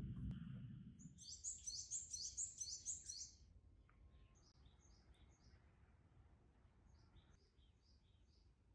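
Small bird singing: a fast run of high, repeated chirps for about two seconds, then fainter, scattered high chirps.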